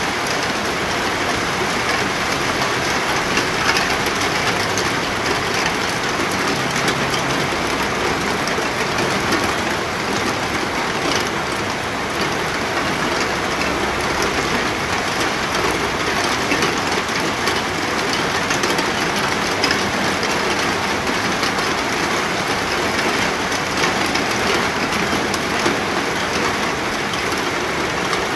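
Steady heavy rain falling on a surface, a dense even patter with scattered sharper drop hits.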